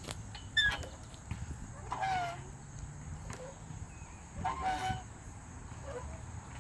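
Playground swing squeaking on each pass: a short, bending squeal that repeats about every two and a half seconds in time with the swing's motion.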